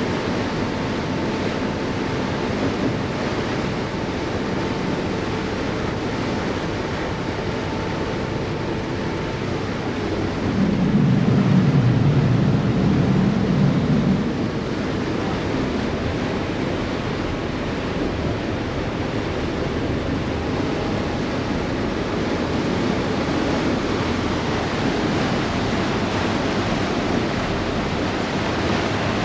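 Steady rush of churning water and wind heard from the deck of a moving harbour ferry, its wake washing behind the boat. About ten seconds in, a louder low rumble swells for roughly four seconds, then settles back.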